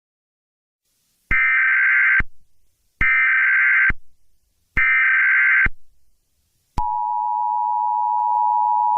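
Emergency Alert System header: three short, identical buzzing data bursts of the digital SAME header, about a second each, then the steady two-tone EAS attention signal starting about seven seconds in.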